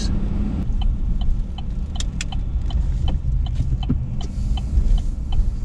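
Inside a moving car's cabin: steady low road and engine rumble, with a regular ticking of about two to three clicks a second from the turn-signal indicator as the car turns.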